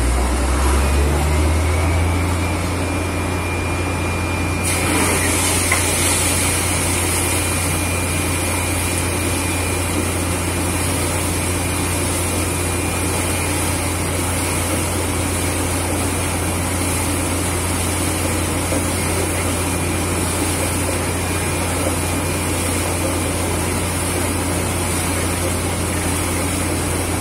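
Truck-mounted borewell drilling rig and its air compressor running: a deep, steady engine drone that rises in pitch over the first two seconds, joined about five seconds in by a steady high hiss of air rushing from the bore.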